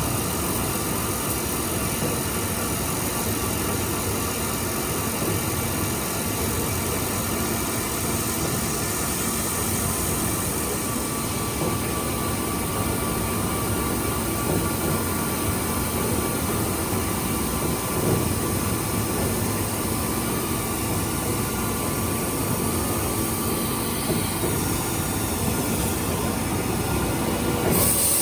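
Milling machine fine-milling an A2 tool steel plate: a steady mechanical drone of the running machine and cutter, with several steady whining tones. A short burst of hiss comes right at the end.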